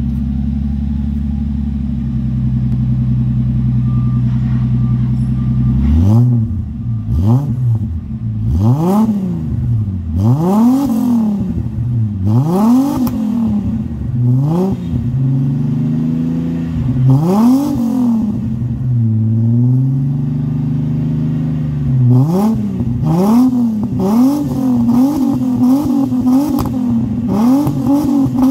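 Holden VS Commodore's 3.8-litre Ecotec V6 breathing through a Redback 2.5-inch single-muffler catback exhaust, heard at the tailpipe. It idles steadily for about six seconds, then is free-revved again and again, each rev rising and falling over about two seconds. After a brief settle back to idle it is given a run of quicker, shorter throttle blips near the end.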